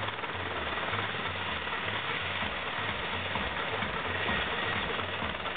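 Helicopter running up for takeoff: a steady engine rush with a low, rhythmic pulsing beneath it.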